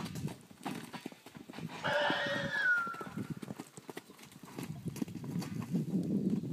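Horse's hooves knocking and thudding on arena sand as it walks. About two seconds in comes a brief high-pitched squeal that bends down at its end.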